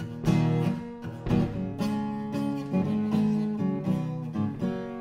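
Instrumental passage of a country song: acoustic guitar strumming chords at an easy pace, with no singing.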